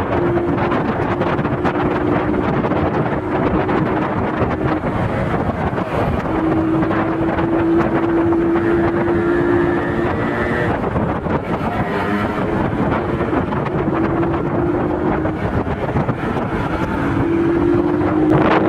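Motorcycle engines running on the move under heavy wind noise on the microphone; a steady engine note comes and goes several times, rising slightly each time.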